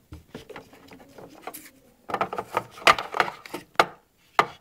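Handling noise: rustling, then a quick run of small taps and clicks about two seconds in that lasts about two seconds, as plastic toy figurines are moved and tapped about by hand and the phone is handled.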